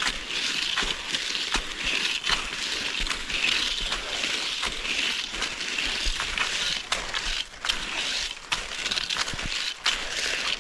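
Footsteps crunching in snow, one about every second and a half.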